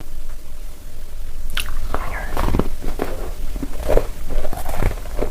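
Close-miked mouth sounds of a person biting and chewing food, with a series of crisp crunches beginning about a second and a half in.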